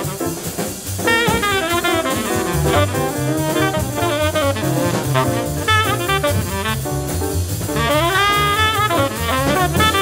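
Modern jazz quartet recording: a tenor saxophone plays a fast, busy melodic line over a walking double bass and a drum kit with cymbals.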